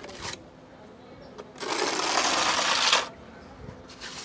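Steel trowel dragged over a rough cement wall, spreading wet texture coat in one long scraping stroke of about a second and a half that stops abruptly, after a short scrape at the start.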